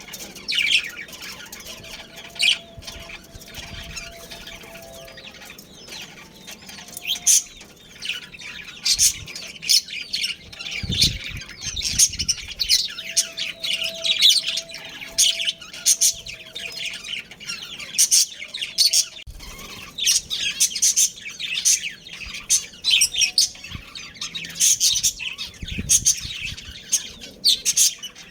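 Budgerigars chirping, a busy stream of short, high chirps and chatter.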